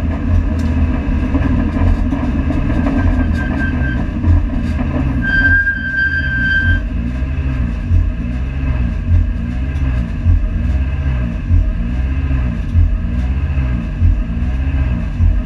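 Honda Civic FD2 race car heard from inside the stripped cabin, running steadily at low speed, with a regular thump about every 1.2 seconds. About five seconds in, a steady beep sounds for about a second and a half.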